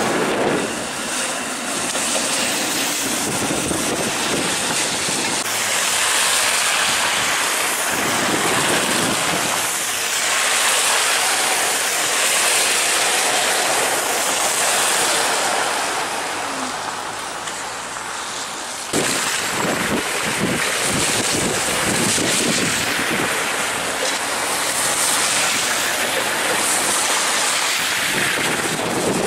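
Flexity Outlook streetcar rolling past and pulling away, mixed with passing road traffic and wind rushing on the microphone. The noise eases off, then jumps back up abruptly about two-thirds of the way through.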